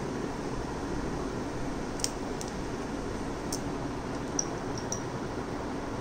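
Steady fan-like background hiss. Over the middle of it come about five light clicks and taps as small objects such as a glass bottle are handled.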